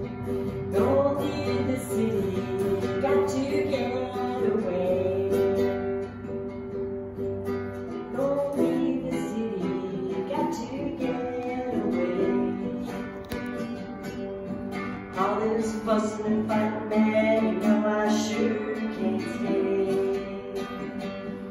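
Acoustic guitar being played, with a voice singing along at several points.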